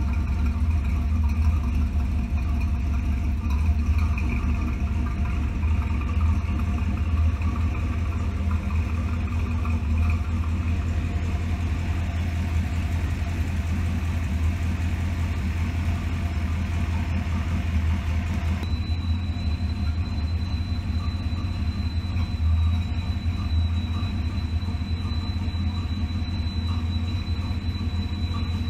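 Carbureted V8 in an old gasser idling steadily. It is being tuned after a new electric fuel pump was fitted.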